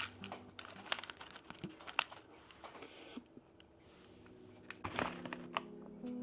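Small plastic packaging crinkling, with scattered light clicks and taps as tiny miniature-kit pieces are handled. The busiest, loudest burst of crinkling and clicking comes about five seconds in.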